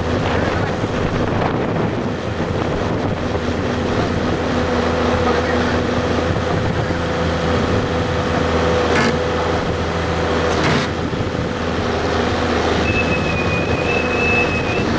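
Tracked excavator's diesel engine running steadily, with two sharp knocks about nine and eleven seconds in.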